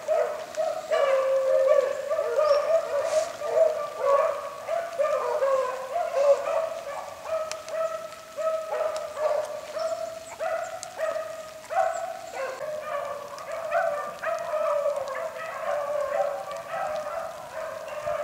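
A pack of beagles baying and howling as they run a rabbit on its scent trail. Several dogs are heard at once, their overlapping calls carrying on almost without a break.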